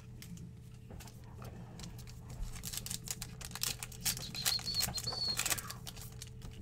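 Foil trading-card pack crinkling and crackling as it is torn open and the cards are slid out, busiest in the middle.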